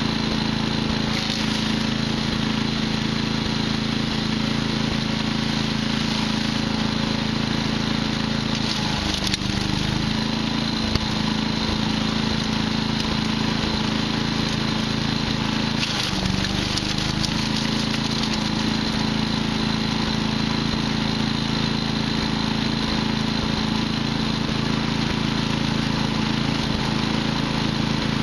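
Patriot wood chipper's small engine running steadily, its pitch sagging briefly twice: about nine seconds in and again around sixteen seconds.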